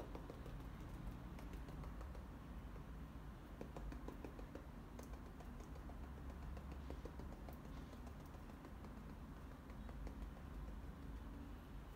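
Paintbrush dabbing acrylic paint onto a canvas: faint, irregular soft taps over a low hum.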